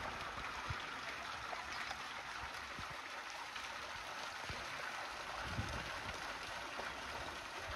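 A steady wash of trickling, splashing water across a wet tidal flat, with a couple of brief low thumps.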